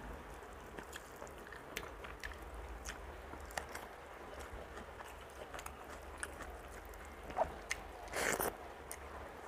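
Close-up eating sounds of rice eaten by hand: soft wet chewing and lip smacks with scattered small clicks. A louder wet smack about eight seconds in, as a handful goes into the mouth.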